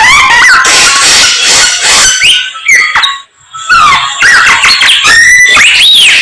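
Samyong songbird singing loudly and close: a fast, varied run of whistled upward and downward glides and chattering notes, broken by a brief pause a little past the middle.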